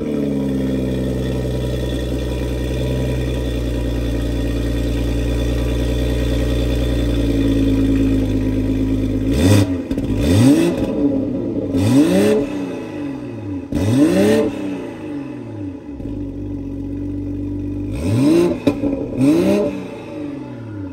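Toyota GR Supra MK5's B58 turbocharged inline-six, with an Autowerke high-flow catted downpipe and the stock active exhaust, heard at the tailpipes. It idles steadily just after starting, then is revved hard six times in quick blips over the second half.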